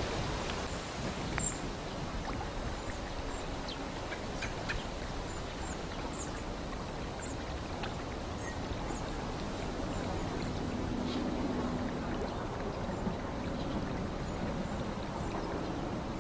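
Steady rushing outdoor background noise, with faint, short, high tick-like bird call notes scattered through it.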